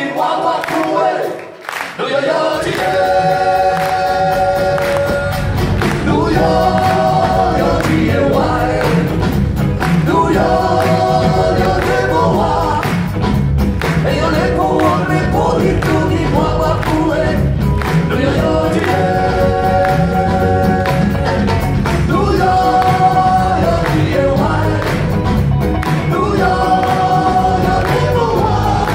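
Live brass band music with several voices singing together. The voices sing alone at first, then about two and a half seconds in the full band with bass and drums comes in under short sung phrases that repeat.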